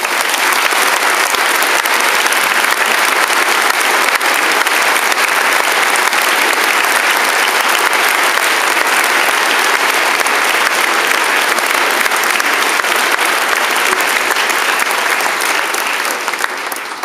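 A large seated audience applauding: dense, loud clapping that starts suddenly and tails off near the end.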